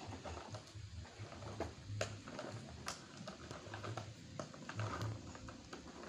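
Plastic wheels of a child's toy ride-on trike rolling over rough concrete: a low, uneven rumble with irregular light clicks and rattles.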